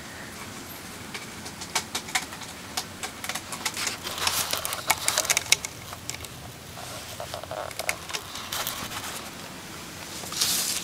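Irregular crackling and rustling as a cat moves about: a plastic bag crinkling in a cardboard box and claws catching on a sisal cat-tree post. A louder rustle of the bag comes near the end.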